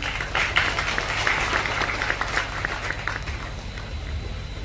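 A crowd clapping: many irregular claps, dense at first and thinning out about three seconds in.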